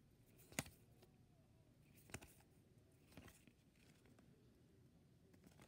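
Near silence with a few faint clicks of paper baseball cards being shuffled and flicked by hand.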